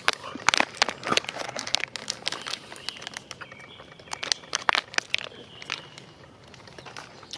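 Plastic candy wrapper crinkling in the hand, a run of irregular crackles that comes and goes as the bag is handled.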